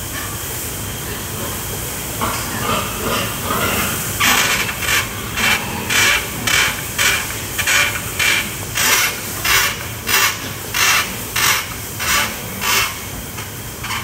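Duroc boar eating at a feed trough: a rhythmic noisy sound about twice a second, starting softly about two seconds in and growing stronger about four seconds in, over a steady hiss.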